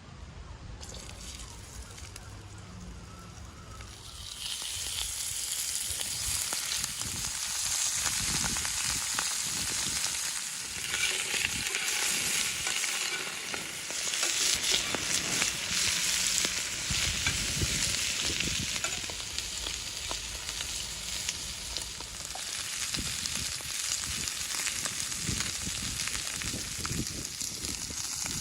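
Food sizzling and crackling in hot oil in a pan, growing louder about four seconds in.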